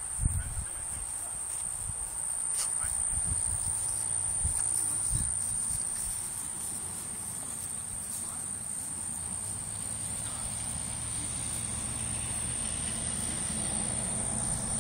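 Steady, high-pitched insect chirring, like crickets, over a low rumble.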